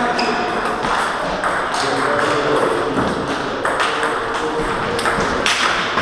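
Table tennis ball clicking off bats and table in a rally, sharp hits every half-second to a second, over a steady hum of voices in the hall.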